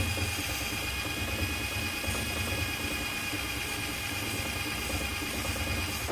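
Cordless drill running steadily against the steel trailer frame, cleaning paint and rust off a spot down to bare metal so the welder's ground clamp makes good contact. A constant whir with a thin high whine that stops abruptly.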